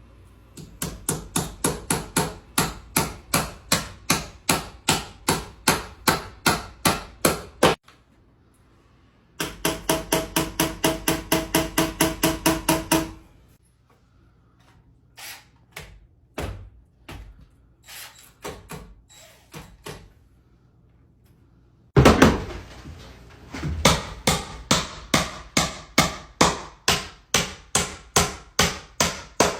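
Hammer or mallet blows on wood in long, steady runs, about three blows a second. A faster run in the middle carries a ringing tone, followed by a few scattered knocks before the steady blows resume.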